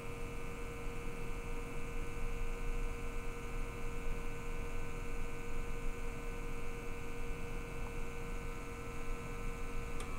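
Steady electric hum with a constant tone from gas-detector calibration equipment running during a methane calibration step. About ten seconds in, a short click is heard and the hum's higher tones change as the step is saved.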